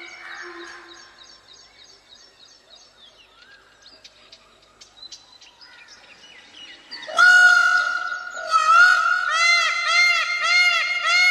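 Faint chirps and clicks for about seven seconds, then an Indian peafowl calling loudly: a rapid series of rising-and-falling nasal honks, about two a second, continuing to the end.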